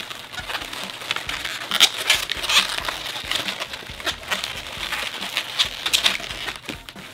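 Latex 260 twisting balloons rubbing and squeaking against each other as they are twisted and locked into a seam. The squeaks and rubs come in a quick, irregular run, loudest about two seconds in and again near six seconds.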